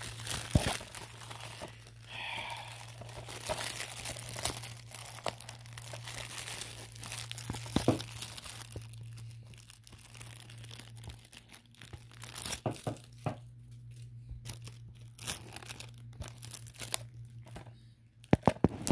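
Thin plastic wrapping on a DVD case crinkling and tearing as it is pulled off by hand, with scattered sharp clicks and taps from the case, the loudest cluster just before the end.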